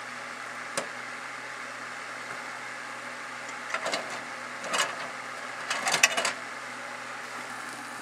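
Microwave oven door swung open, with one sharp click about a second in, then the glass turntable plate carrying a burning shower radio pulled out, clattering in short bursts about four, five and six seconds in, over a steady hiss and low hum.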